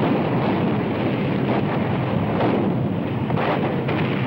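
Dense, steady rumble of a battle soundtrack, as of an artillery barrage and heavy vehicles, with a few faint sharper cracks from about one and a half to four seconds in.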